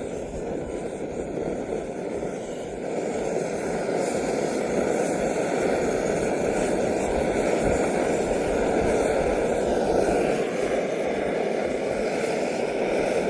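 Camp stove burner running steadily with a strong, even hiss, getting a little louder about four seconds in.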